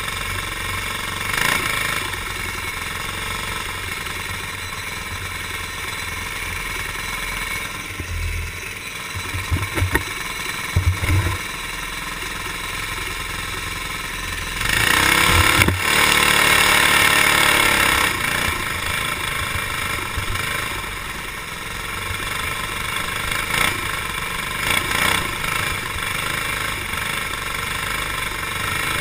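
Racing kart engine running at speed, heard from an onboard camera on the kart, with a few low thumps about a third of the way in. About halfway through it gets louder for a few seconds, with the pitch bending, then settles back.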